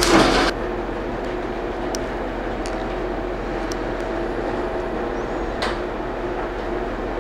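Steady rumble and hum of a train at a station platform, with a few faint clicks. A short hiss comes at the very start, just as a train horn cuts off.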